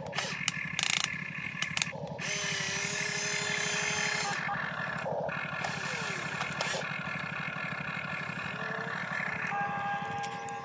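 Radio-controlled hydraulic excavator's pump motor humming steadily. Short whines and clicks come as the boom, arm and bucket move and the upper body swings.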